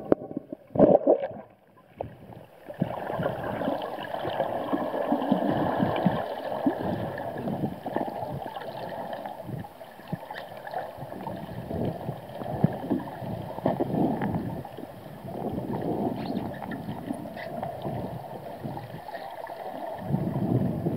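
Underwater water noise picked up by a diver's camera: a steady rushing, gurgling sound with many small irregular knocks and swishes. It sets in after a couple of brief bumps about two seconds in.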